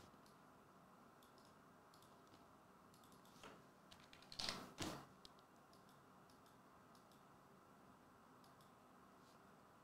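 Near silence with faint, scattered clicks of a computer keyboard being typed on, and a short cluster of louder taps and knocks about four and a half seconds in.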